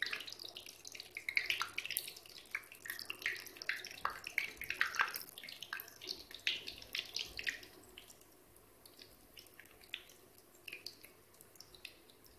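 Gujiya (maida-dough pastries) deep-frying in hot oil in a kadai: busy sizzling and crackling of the oil, thinning out to occasional pops after about eight seconds.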